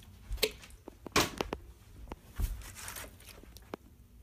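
Part-filled plastic Pepsi bottle knocking on a hard floor as it is flipped and handled: a handful of separate knocks and light thuds, the loudest a little over a second in.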